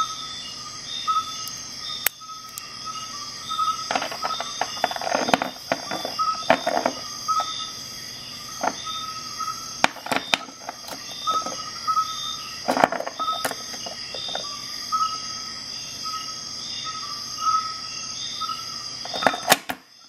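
Steel multi-tools being handled: scattered metal clicks and clatter as parts are folded and fitted together. Behind them runs a regular high chirping, repeating about every half second, over a faint steady high hiss.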